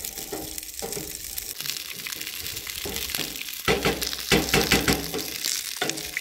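Sausages sizzling in a frying pan on a two-burner propane camp stove, with a wooden spoon stirring and scraping macaroni in a steel pot alongside. The stirring grows louder for a couple of seconds past the middle.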